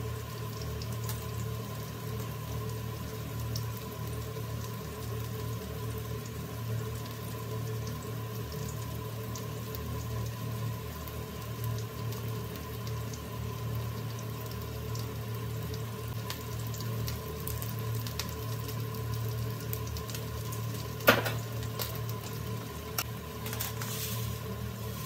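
Steady mechanical hum with a light hiss, like a kitchen fan running. About 21 seconds in comes one sharp click, and near the end a few light rustles as toasted sesame seeds are shaken from a plastic bag into the bowl.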